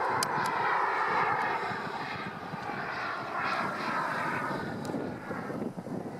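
Jetcat P-90 RXi model turbine of an Aviation Design Scorpion RC jet in flight: a steady rushing jet noise that eases off slightly near the end as the plane draws away.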